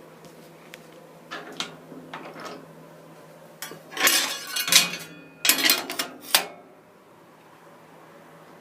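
A large square being handled and set down on a table saw's cast iron top: a few light knocks, then two bouts of metallic clattering and scraping about four and five and a half seconds in, the second ending in a sharp knock.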